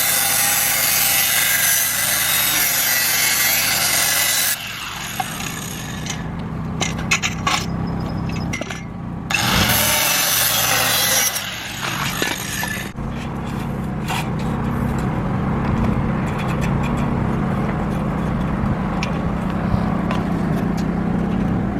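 A power tool cutting through steel fence posts in two long bursts, the first about four seconds and the second about three, with scraping and clatter between and after. A portable Predator generator hums steadily underneath.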